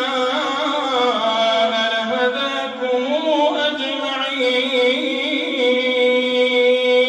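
A man's voice chanting Quranic recitation in melodic Arabic, amplified through a microphone. The voice glides between notes, then holds one long steady note from a little past halfway.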